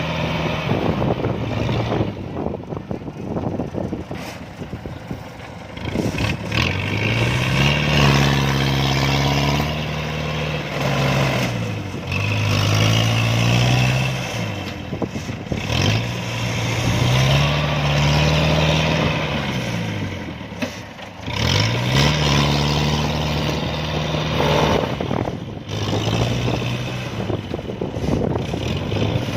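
Diesel engine of a tracked farm machine working in deep mud, revving up and falling back again and again every few seconds, with some clatter.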